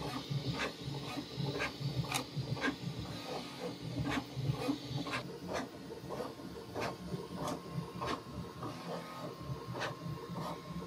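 Bambu Lab 3D printer running a print: stepper motors whirring in shifting pitches as the toolhead moves, with short sharp ticks about twice a second.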